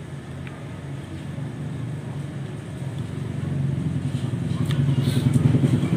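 A motor vehicle engine running with a low, pulsing rumble that grows steadily louder, as if drawing closer. A few faint clicks near the end.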